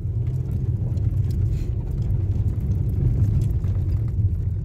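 Car driving on an unpaved dirt road, heard from inside the cabin: a steady low rumble of tyres and engine.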